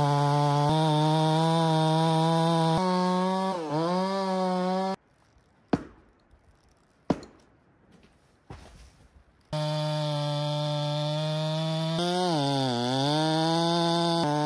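Stihl two-stroke chainsaw running at full throttle in a felling cut, its pitch dipping briefly under load, then stopping abruptly about five seconds in. A few seconds of near quiet with a few sharp knocks follow, then the saw is running in the cut again, dipping once more under load.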